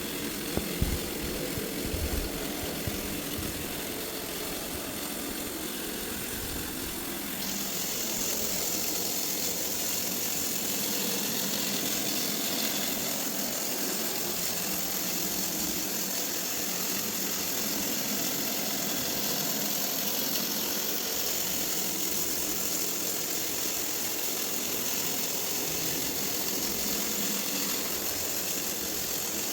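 Robot vacuum running with a steady motor and fan whir, a few low thumps near the start. About seven seconds in, the hiss turns brighter and a little louder.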